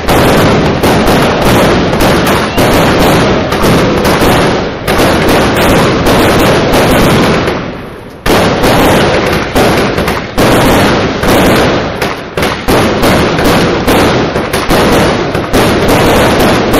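Fireworks going off in a very loud, rapid, continuous barrage of bangs and crackles. The barrage thins out and fades about halfway through, then starts again suddenly.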